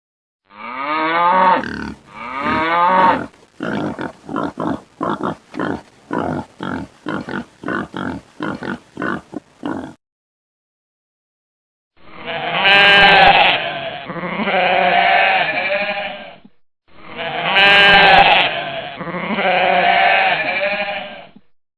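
A sequence of animal-call sound effects. Two calls rising in pitch are followed by a rapid run of short, repeated calls at about two to three a second. After a brief silence, the same long, wavering call plays twice.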